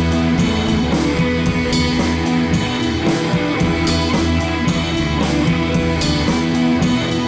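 Background rock music: guitar over drums with a steady beat.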